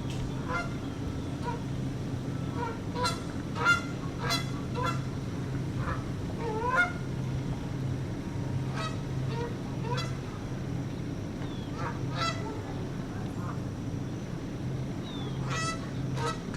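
Canada goose honking in short calls that come in irregular clusters, some rising in pitch: a male calling to the female. A steady low hum runs underneath.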